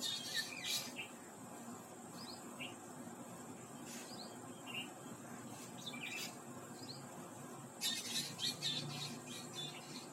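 Several birds chirping in short, high, quick notes, many of them falling in pitch. The chirps come in clusters near the start, around six seconds in, and in a busier run near the end, over a steady high, thin tone.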